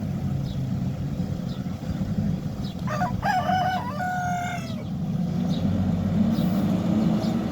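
Backhoe loader's diesel engine running steadily, with a rooster crowing once about three seconds in, a call of nearly two seconds in two parts.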